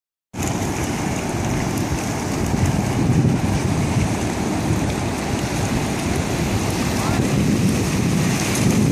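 Ocean surf washing in with wind buffeting the microphone: a steady, rumbling rush of noise.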